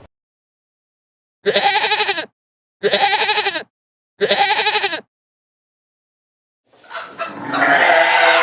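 A goat bleating three times, each call about a second long with a quavering tremolo and identical to the others, with dead silence between them. Another bleating call starts near the end.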